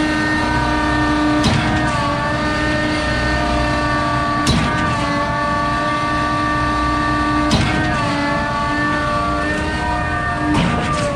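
Concrete pump truck running, its valve shifting with a sharp clunk about every three seconds, the engine note dipping briefly at each shift.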